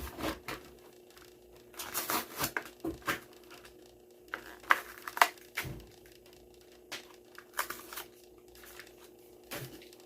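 Plastic blister packaging crinkling and tearing with scattered sharp clicks and crackles as a Hot Wheels die-cast car is pulled out of its card.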